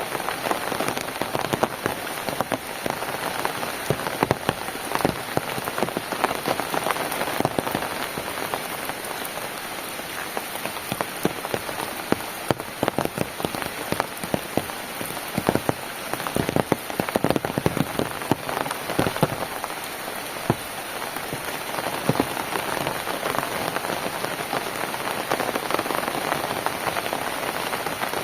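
Steady rain falling on a hard surface, a continuous hiss dense with many separate drop hits.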